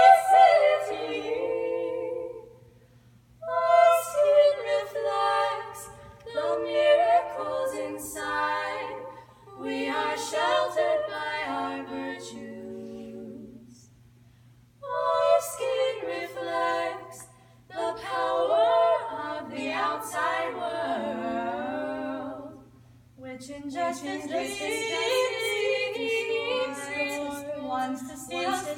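A small female vocal ensemble singing a cappella, in phrases broken by a few short pauses. A faint steady low hum runs underneath.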